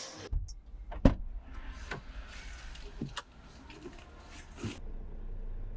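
Several sharp knocks and clicks, the loudest about a second in, over a low steady rumble.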